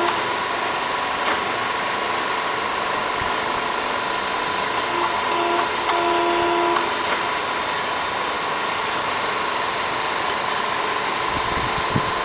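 Exhaust pipe and tube bending machine running as it bends a pipe: a steady mechanical noise with a constant whine, and a short low hum joining in about five to seven seconds in.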